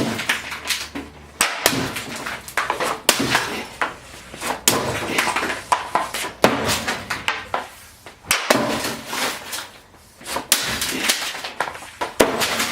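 Repeated, irregular hard impacts and cracking as hockey pucks and sticks smash into a laptop, many blows spread over the whole stretch.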